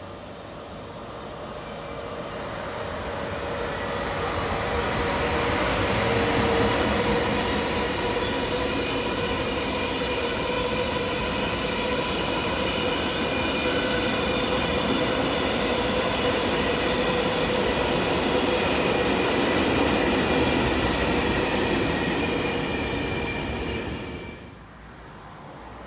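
A train passing: its noise builds over the first few seconds, then holds steady as a rumble with several high held tones above it, and cuts off suddenly near the end.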